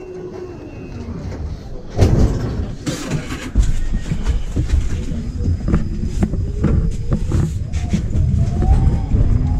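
Inside a moving city tram: low rumble and rattling knocks of the car. From about halfway through, the electric traction motor's whine rises slowly in pitch as the tram gathers speed.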